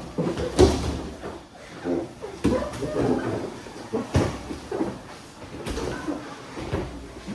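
Bodies scuffing and thudding on foam training mats as two grapplers roll, with a handful of irregular dull impacts.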